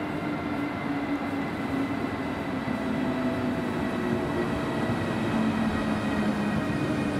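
Siemens Vectron electric locomotive arriving at a platform and passing close with its coaches, growing steadily louder. Its traction equipment gives steady whining tones that fall slightly in pitch.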